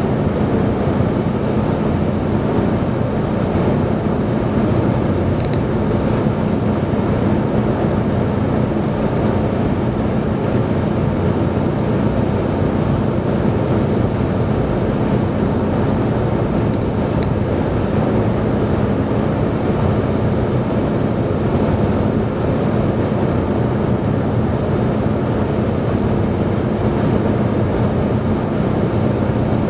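Steady road noise inside a moving car: tyre and engine noise through the cabin with a constant low hum. Two faint high clicks come about a quarter and about halfway through.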